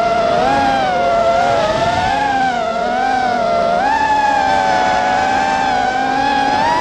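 Motors of an FPV quadcopter, several whines close together in pitch, rising and falling as the throttle changes through the turns.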